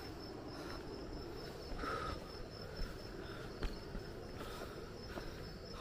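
Night insects, crickets among them, chirring steadily with a continuous high trill, plus a few short lower calls. Faint footsteps on a dirt path.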